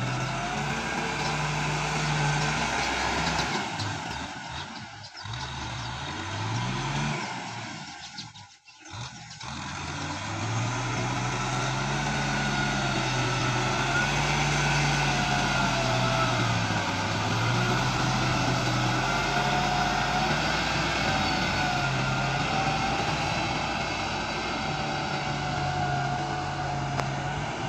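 Kubota M6040SU tractor's diesel engine running under load while plowing, its pitch wavering up and down as the load changes. The sound drops away briefly twice in the first ten seconds.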